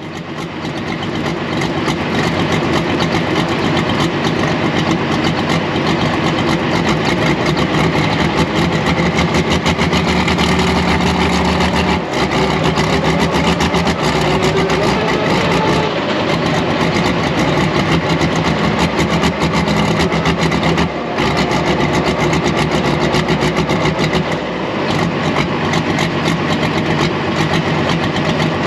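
Pro stock pulling tractor's diesel engine running steadily near idle, with a few brief dips in its note.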